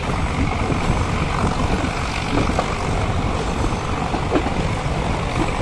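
Nilgiri Mountain Railway toy train in motion: a steady rumble of the moving carriage, with a few faint clicks.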